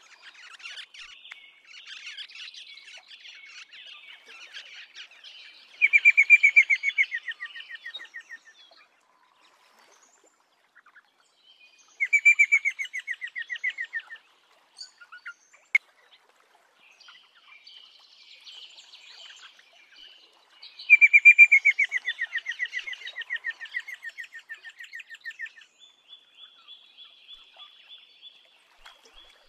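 Rosella calling: three loud, rapid trains of chattering notes, each sliding slightly down in pitch and lasting two to four seconds. Softer, higher chatter runs between them.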